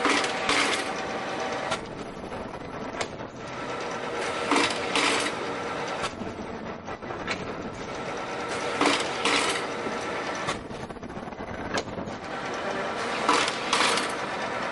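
Non-woven fruit bag making machine running, with a steady mechanical hum and a burst of clattering and clicks about every four and a half seconds as it cycles.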